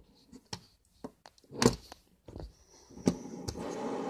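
Fingers tapping and flicking plastic fidget spinners on a hard sill: a handful of sharp clicks and knocks, the loudest about halfway through. From about three seconds in, a spinning fidget spinner's bearing gives a steady whir.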